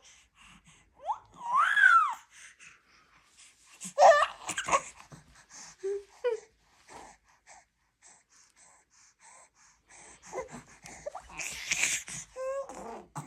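A baby's short cooing and squealing calls, one rising then falling in pitch, between a woman's wheezy breaths and gasps as she recovers from coughing. There is a louder burst about four seconds in, and a stretch of breathy sounds and small calls near the end.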